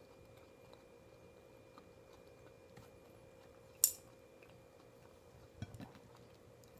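Tableware handled during a meal: one sharp click about four seconds in, then a few soft knocks, over a faint steady hum.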